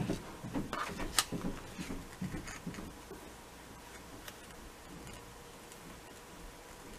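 Faint handling noises of paper and ribbon being worked by hand: a few light clicks and taps over the first couple of seconds, with one sharper click about a second in. After that there is only quiet room tone with a faint steady hum.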